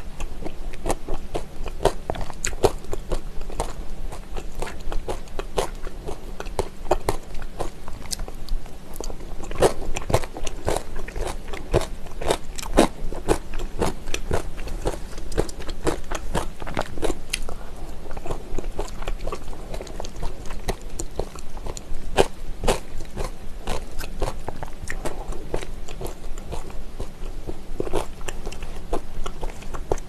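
Close-miked eating of spicy seasoned raw oyster salad (saenggul-muchim) with vegetables: steady chewing and biting, with many small clicks and crunches.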